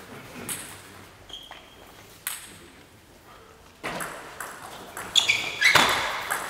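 Table tennis balls clicking off bats and tables during doubles rallies, the hits echoing in a large hall. A few scattered hits at first, then a faster, louder run of exchanges near the end.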